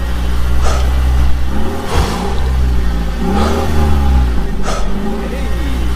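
A vehicle engine running with a steady low drone. Its pitch rises and falls every second or two as it revs. A few sharp clicks come through.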